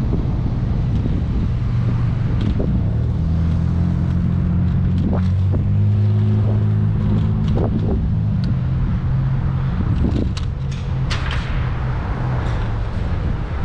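Wind rushing over the microphone with a low rumble from a moving vehicle, and a steady engine drone from about three to ten seconds in. A few sharp clicks or knocks come near the end.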